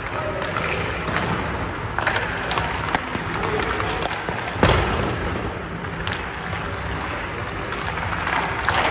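Hockey skates scraping on the ice and a puck shot at a goaltender, with a sharp crack of stick and puck about four and a half seconds in as the loudest hit. Several lighter knocks of stick, puck and pads come before and after it.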